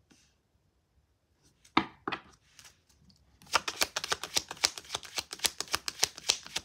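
A deck of tarot cards being shuffled by hand: a few handling taps, then, from about halfway through, a fast run of card slaps and riffles, many a second.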